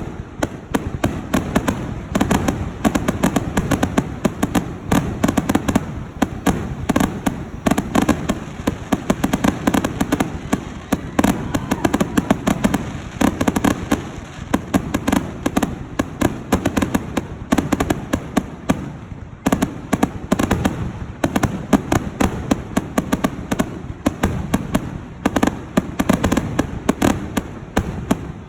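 Fireworks going off in a dense, continuous barrage of rapid bangs and crackles, with a brief lull about two-thirds of the way through.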